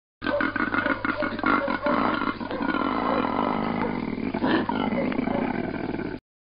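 Koala bellowing: a low, rough, rapidly pulsing call that goes on for about six seconds and cuts off suddenly.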